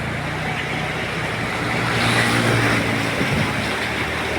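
A motor vehicle's engine running close by over a steady rushing noise, getting louder about halfway through as it passes.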